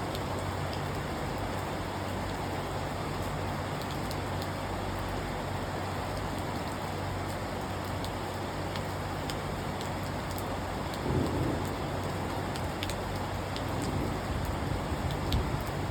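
Steady rain pouring down, with scattered drops ticking on a window, over a steady low hum. Brief low rumbles swell up about eleven seconds in and again near the end.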